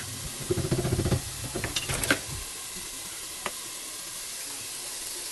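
Food sizzling steadily in a cooking pan, with a spoon stirring and knocking against the pan from about half a second to two and a half seconds in.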